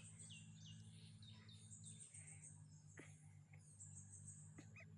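Quiet background: faint bird chirps, a run of short falling notes in the first couple of seconds, over a high insect-like trill and a steady low hum.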